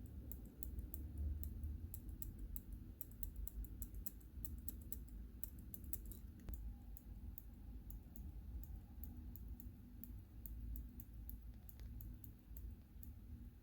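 Cherry MX Ultra-Low Profile Clicky key switches clicking as they are pressed again and again, sharp high clicks at an uneven pace of several a second, over a low steady rumble.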